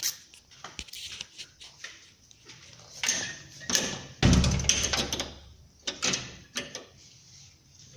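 Scattered clicks and rustling, with a loud, deep thump a little past four seconds in that dies away over about a second.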